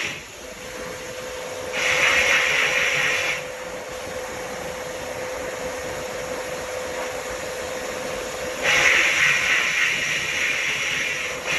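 Vapor hone blast nozzle spraying water and glass-bead slurry at carburetor parts inside the cabinet: a continuous hiss that grows louder for about a second and a half around two seconds in, and again for a few seconds near the end, with a faint steady hum underneath.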